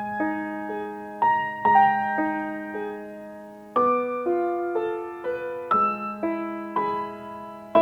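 Background piano music: slow, separate struck notes over a held low bass note.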